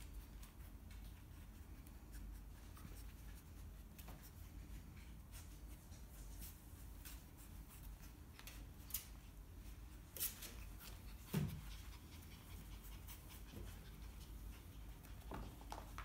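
Puppies scuffling in play on a fabric dog bed: faint scratching and rustling with scattered small clicks, and one brief louder sound about eleven seconds in.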